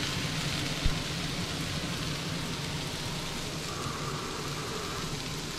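Bacon, mushrooms and leeks sizzling steadily in a frying pan, with one low thump about a second in.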